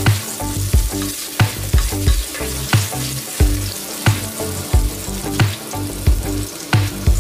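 Strips of ginger sizzling steadily in hot oil in a pot, with a spatula scraping as it stirs them. Background music with a steady beat plays over it.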